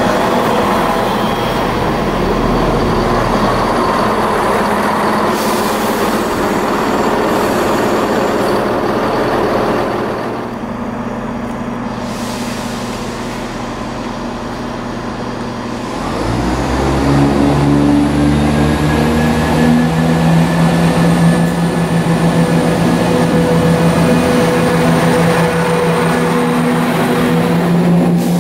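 Class 170 Turbostar diesel multiple unit running along the platform, a rough rumble of engines and wheels that eases off about ten seconds in. About sixteen seconds in, the diesel engines throttle up: their note climbs, then holds as a loud, steady drone as the train pulls away past the platform.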